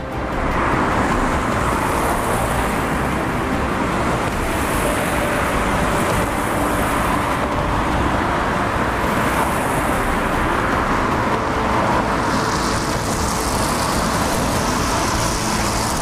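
Rushing water of a large waterfall and whitewater rapids: a loud, steady, even noise.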